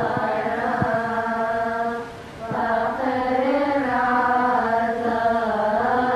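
Woman's voice chanting a Coptic Arabic madih (praise hymn), drawing out long, wavering held notes with no clear words. There is a short break about two seconds in.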